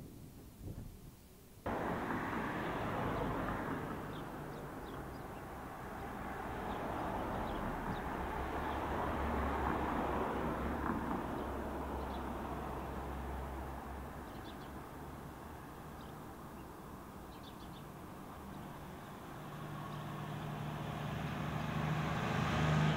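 Steady outdoor street noise of passing traffic, starting suddenly about two seconds in and swelling again near the end with a low engine hum.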